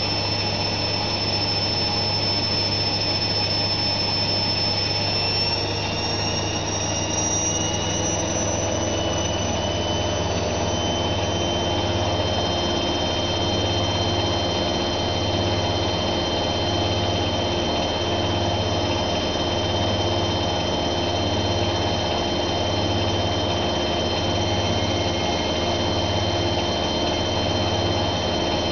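Zanussi ZWF 1621 W washing machine on its spin cycle, the drum turning at high speed. A high-pitched motor whine rises slightly in pitch over the first ten seconds or so and then holds steady over a low hum that pulses about once a second.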